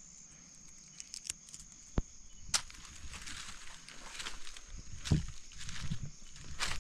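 Rustling footsteps moving through undergrowth, starting about two and a half seconds in with a few heavier steps near the end. A few sharp clicks come before them, and a steady high insect trill runs throughout.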